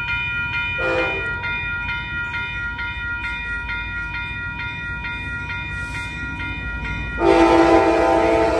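Grade crossing warning bells ringing steadily as an Amtrak F59PHI diesel locomotive approaches, sounding a short horn toot about a second in and then a long, loud horn blast from about seven seconds in.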